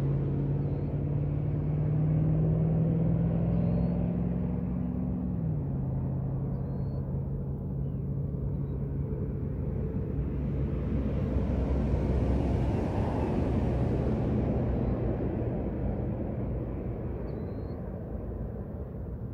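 Road traffic: a motor vehicle's engine hums steadily and drops in pitch about five seconds in, and a car passes by around twelve seconds in, its noise swelling and then fading.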